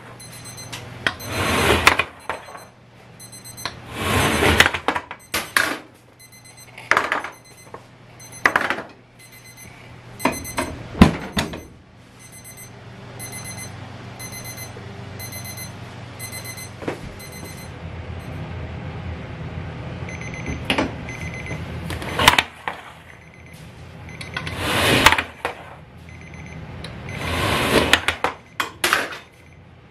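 Metal chiffon tube pans scraping and clanking on the oven's steel deck as baked cakes are slid out one after another, with sharp knocks among the scrapes. A high-pitched electronic timer beeps rapidly through the first half, and a steady low hum runs through the middle.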